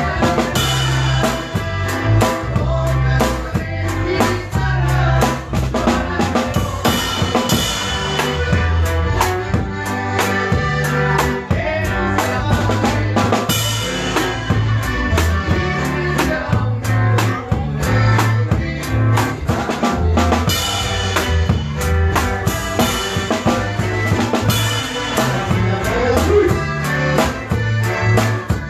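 Norteño band playing an instrumental passage: a drum kit keeping a steady beat with bass drum and snare, a bass line alternating between two notes, and an accordion carrying the melody.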